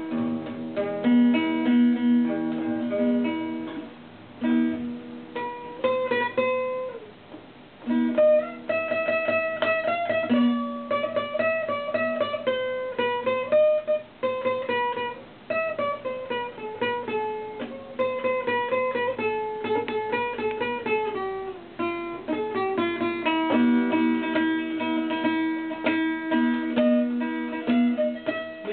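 Instrumental music on a plucked string instrument: a melody of picked single notes with descending runs over lower held notes.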